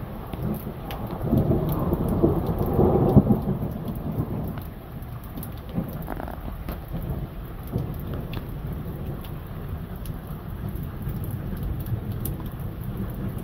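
A roll of thunder rumbling over steady heavy rain. It swells about a second in, is loudest around three seconds in, then fades back into the hiss of the rain, with scattered raindrop ticks throughout.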